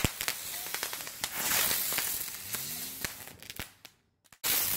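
Ground firework going off: a rapid, irregular series of sharp pops and cracks, with a rushing hiss that swells about a second and a half in. The sound cuts out abruptly for about half a second near the end.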